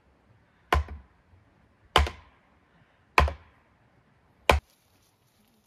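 A hammer driving a wooden fence post into the ground, four heavy strikes on the post top about a second and a quarter apart, each a sharp whack with a brief ring after it.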